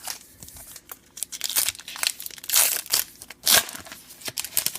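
Wrapper of a Topps Star Wars Evolution trading card pack being crinkled and torn open by hand: a run of sharp crackles, loudest from about a third of the way in to past the middle.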